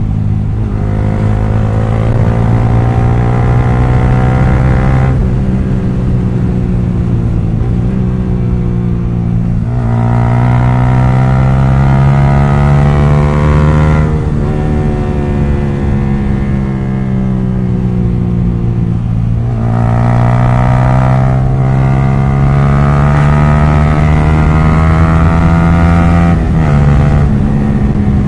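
Yamaha R15 V3's single-cylinder engine, ridden with both dB killers removed from its exhaust, pulling hard: the exhaust note climbs in pitch for several seconds, drops back sharply and climbs again, about five times, as the bike is accelerated through the gears.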